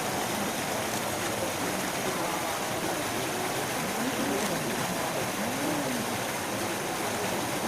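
African elephant urinating in a steady stream, pouring out like a waterfall and splashing onto the ground.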